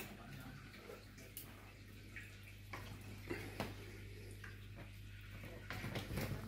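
Faint steady low hum with scattered light taps, scuffs and rustles from a kitten and dog playing with a wand toy on a leather sofa. A few sharper taps come around the middle and again near the end.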